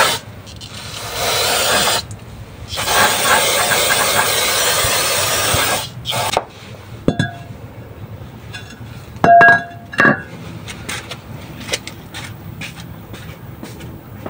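Aerosol brake cleaner spraying onto a wheel hub in hissing bursts: a short burst, a long one of about three seconds, then a brief one. Then a few metal clinks, the loudest about nine seconds in, ringing briefly.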